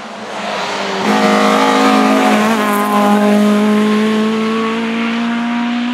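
Race car engine on a hillclimb, accelerating at high revs. It gets much louder about a second in and holds a strong note that climbs slowly in pitch.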